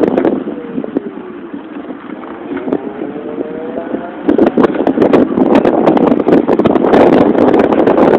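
Wind buffeting the microphone on a moving Motorino XPD electric scooter. In the first half the wind dies down and the scooter's motor whine can be heard, its pitch falling as the scooter slows and then rising as it speeds up again. The wind noise comes back about four seconds in.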